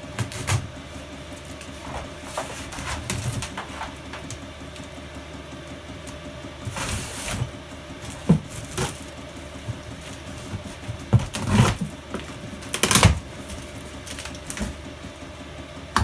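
Cardboard box being opened by hand: packing tape cut and pulled, cardboard flaps rustling and scraping in irregular bursts, with a few sharp knocks.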